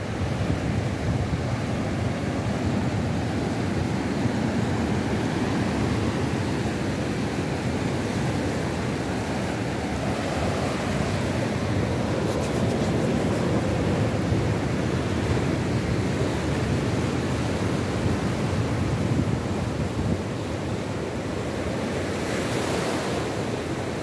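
South Atlantic surf breaking offshore and washing up a sandy beach in a steady, even rush, with wind buffeting the microphone.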